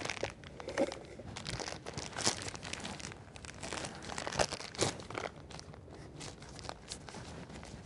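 Plastic piping bag full of cake batter crinkling in gloved hands as it is lifted, squeezed and twisted closed: irregular crackles, busiest in the first few seconds and thinning out toward the end.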